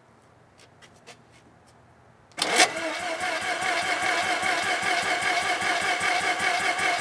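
Starter cranking the Pro Formula Mazda's two-rotor 13B Renesis rotary engine, starting about two and a half seconds in: a steady starter whine over rapid, even pulses that never rises into a rev. The engine is struggling to start.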